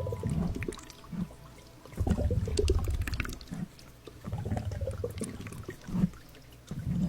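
Water being sloshed and squished in close-up, coming in surges about every two and a half seconds, with many small bubbly pops and clicks.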